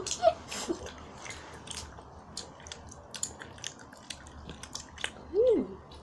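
Close-up mouth sounds of someone chewing gummy and jelly candy, with scattered small wet clicks. Near the end comes one short voiced sound that rises and falls in pitch.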